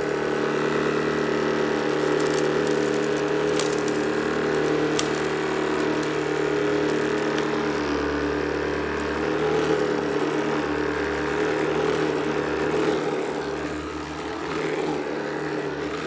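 Shark cordless sweeper running in carpet mode: a steady motor and brushroll hum as it is pushed over carpet, with scattered sharp ticks as paper bits, screws and grit are swept up.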